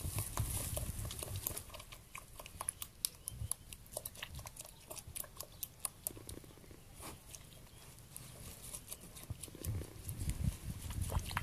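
Goat eating sliced squash from a plastic bucket: irregular crunching and chewing clicks.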